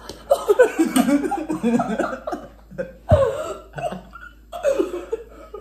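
A person coughing and laughing with a mouthful of extremely spicy instant ramen, with a sharp cough about three seconds in; the coughing is set off by the chilli heat.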